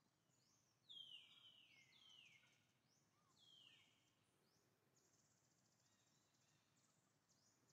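Faint forest background: a bird gives several falling whistled calls in the first few seconds, the loudest about a second in. About five seconds in, a steady high insect buzz starts up and carries on.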